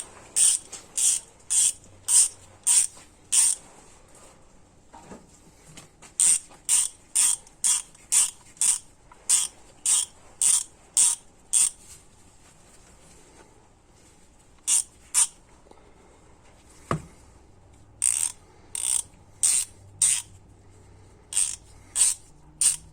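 Pittsburgh go-thru ratchet being swung back and forth, each stroke a short burst of pawl clicks, about two strokes a second in several runs with pauses between. Its ratcheting noise is the owner's one complaint about the tool, and this is a test of whether a fix helps. A single low knock comes in one of the pauses.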